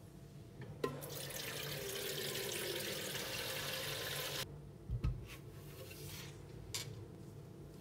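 Kitchen tap running into a clear bowl: a click as it opens, a steady rush of water for about three and a half seconds, then cut off sharply. A couple of low knocks follow as the bowl is set down on the counter.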